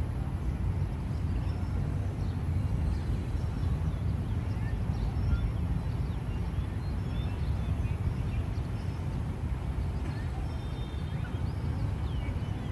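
Outdoor city-park ambience: a steady low rumble of distant city traffic, with faint bird chirps scattered throughout.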